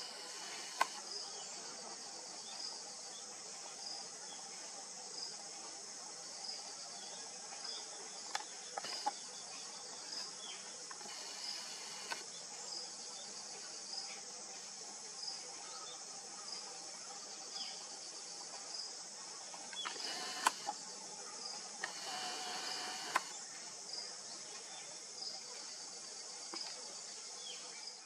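Steady high-pitched drone of insects, with a faint short note repeating about every second and a quarter. A few sharp clicks stand out, the loudest about 20 seconds in, along with a few short falling calls.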